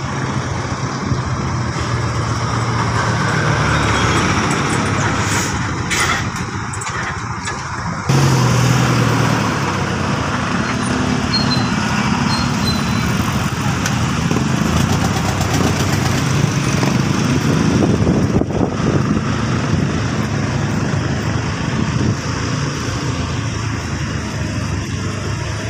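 Vehicle engine running steadily under road and wind noise while travelling in traffic, with other cars and motorcycles around; about eight seconds in the engine note steps up and grows louder.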